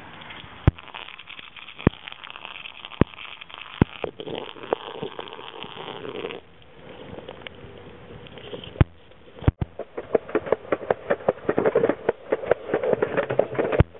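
Longboard wheels rolling on concrete, with sharp clacks about once a second at first. Near the end this turns into a denser, faster clatter with a rolling rumble.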